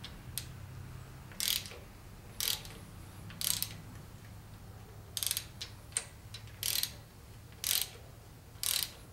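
Small ratchet wrench clicking in short strokes, about once a second, as it turns down a rocker arm adjusting nut on a Chevy 350 small-block V8 to set the valve lash.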